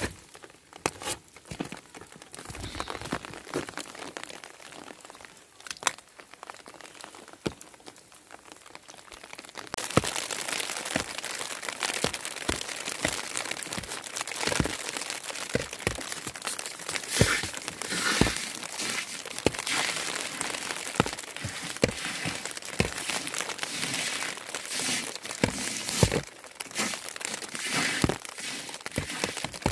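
Falling snow ticking and crackling on surfaces: a dense scatter of small ticks over a hiss, which gets clearly louder about ten seconds in.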